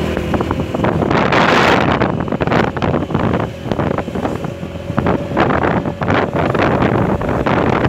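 Wind buffeting the microphone of a moving motorcycle in uneven gusts, over the bike's engine running underneath.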